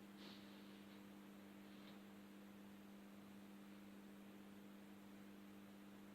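Near silence: a faint steady electrical hum over low background hiss, with a faint brief rustle about a third of a second in.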